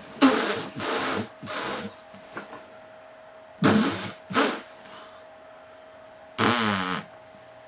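A man's breathy, strained vocal sounds in six short bursts: three in quick succession in the first two seconds, two more about four seconds in, and a longer one near the end.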